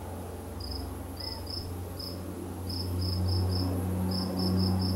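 Low, steady drone of an AT-502B Air Tractor's turboprop engine and propeller as the crop duster flies past, growing louder. Over it, an insect chirps in short, high pulses, several a second in little runs.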